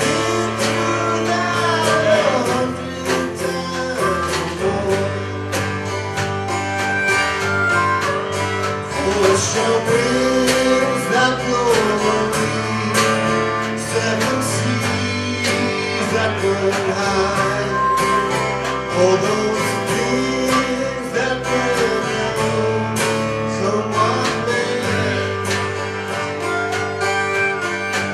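Live acoustic country-folk band playing: steady strummed acoustic guitar with a melody line carried over it.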